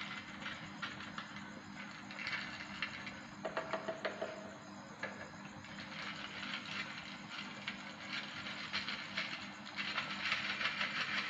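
Irregular clatter, knocks and scraping as a hand works a metal vessel in blue plastic drums, over a faint steady hum.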